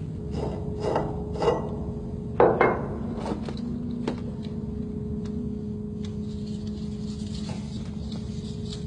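A few knocks and metallic clatters, the loudest about two and a half seconds in, then a single sharp click, over a steady machinery hum.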